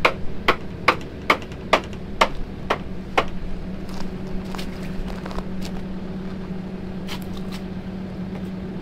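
Honda portable generator running with a steady hum. Over it, a series of sharp clicks or taps about twice a second for the first three seconds or so, then a few fainter ones later.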